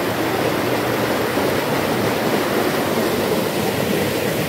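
Mountain river rushing over rocks in small rapids: a steady rush of water.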